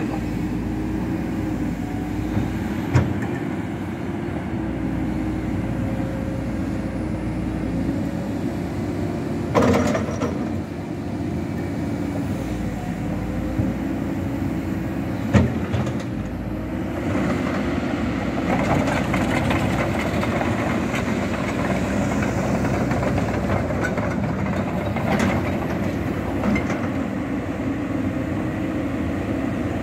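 Cat 312D L tracked excavator's diesel engine running steadily under hydraulic working load as the boom, arm and bucket move, with a few sharp knocks.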